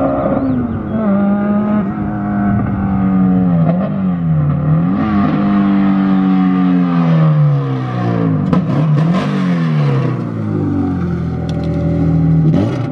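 Honda Civic hatchback engine revving as the car drives, the revs climbing and dropping several times before holding steady near the end.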